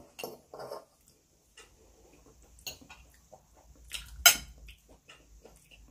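Fork and spoon clinking and scraping against a plate in scattered light taps, with one sharper clink about four seconds in.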